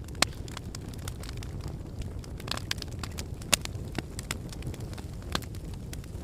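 Wood fire burning in a fireplace: a steady low rumble of flames with frequent sharp crackles and pops, two of them louder, about a quarter second in and a little past the middle.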